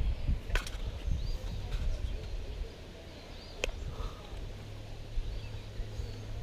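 Outdoor ambience: small birds chirping faintly over a low rumble like wind on the microphone, with two sharp clicks, one about half a second in and one about three and a half seconds in.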